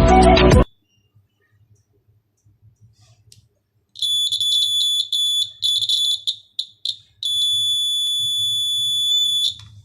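Electronic buzzer of a homemade water tank level alarm sounding one high-pitched tone, first in stuttering bursts and short chirps, then held steadily for about two seconds before cutting off.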